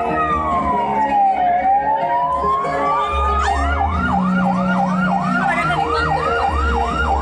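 Dance music built around a siren sound effect: a slow wail that dips and rises again, then about three seconds in it switches to fast repeated yelps, about three a second, over held synth notes and a pulsing bass.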